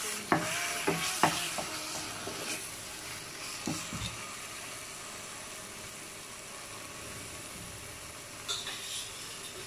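Marinated chicken pieces sizzling with onion and tomato paste in a stainless steel pan, stirred with a wooden spoon that knocks and scrapes against the pan a few times in the first second or so. Then the pan sizzles steadily, left alone.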